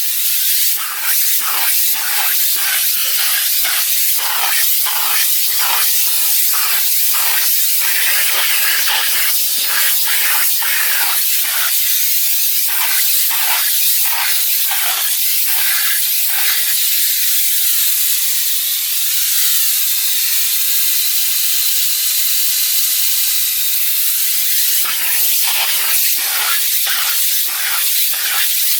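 Electrolux Ergospace canister vacuum cleaner running, a loud rush of suction air over a steady motor hum. The air rush swells and dips in a quick rhythm as the nozzle strokes over the car's interior, and holds steady for several seconds past the middle before the strokes resume near the end.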